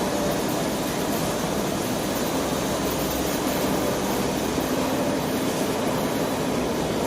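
Heavy-duty CNC lathe running during a turning operation: a steady mechanical hum and whir at an even level, with faint steady tones in it.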